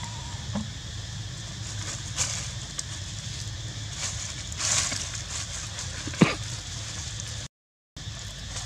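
Soft rustling and scuffling in dry leaves as macaques move about, over a steady low rumble, with one sharp short click or squeak about six seconds in. The sound cuts out briefly near the end.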